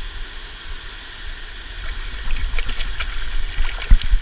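Water trickling and splashing at the river's edge, with the splashes getting busier about halfway through, over a steady low rumble. There is a sharp thump near the end.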